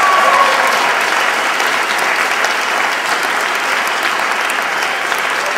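Audience applauding steadily in a hall, easing off slightly toward the end.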